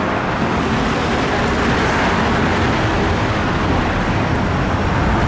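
Steady rumble and hiss of a moving vehicle, with a faint low hum running through it.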